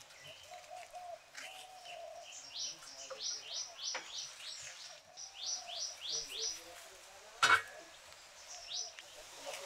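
Small birds singing: runs of four or five quick high chirps, repeated three times. One sharp click about three-quarters of the way through is the loudest sound.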